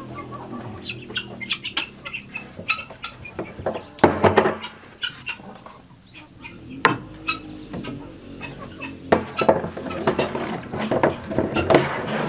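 Chickens clucking, among sharp irregular knocks and clatter from a hose being handled and set into a plastic drum.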